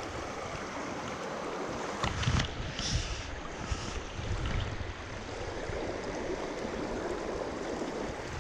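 Creek water rushing steadily, with a few irregular thumps and rustles about two seconds in and again around four to five seconds.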